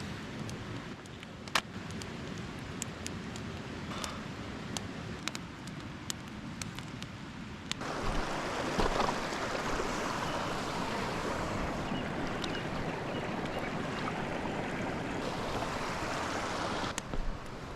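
Campfire of damp wood crackling with scattered sharp pops. About eight seconds in it gives way to the louder, steady rushing of a mountain stream.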